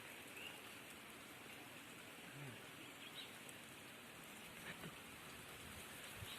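Rain falling steadily: a faint, even hiss with a few small ticks.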